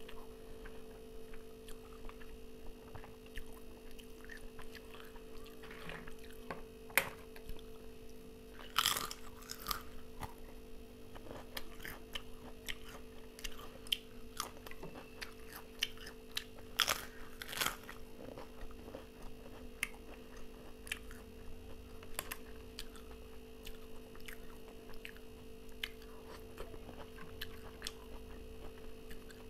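Close-up chewing and crunching of food eaten by hand, with louder crackly crunches of fried papad about a third of the way in and twice a little past halfway. A steady hum runs underneath.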